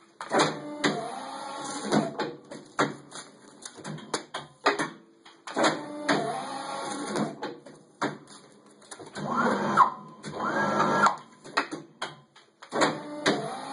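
Polar 55 EM paper guillotine working through its cutting cycles: bursts of motor whine every four to five seconds, two of them rising in pitch about two-thirds of the way through, with sharp clicks and knocks in between.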